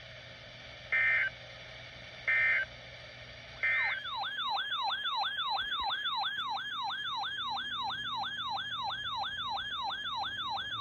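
Three short bursts of Emergency Alert System (SAME) digital data, about a second and a quarter apart, followed about four seconds in by a warbling, siren-like alert tone that sweeps down in pitch about three times a second.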